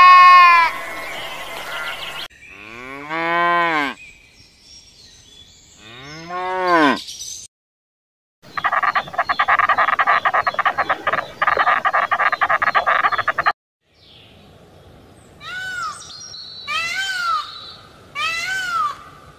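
A run of different animal calls edited one after another. It opens with a goat bleating, then two long, low calls, then about five seconds of dense, rapid chirring, and it closes with three loud calls from a peacock, each rising and falling in pitch.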